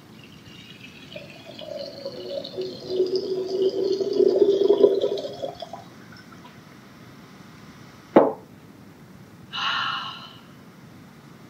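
Liquid poured into a glass, growing louder for about five seconds and then stopping. A sharp click follows about eight seconds in, then a brief noisy burst near the end.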